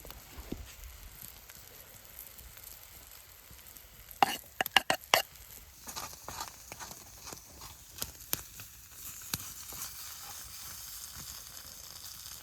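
Fry-up sizzling in a carbon steel pan over a small wood fire. About four seconds in comes a quick run of about five sharp knocks of a utensil stirring against the pan. After that a steady sizzle builds, with scattered pops and clicks.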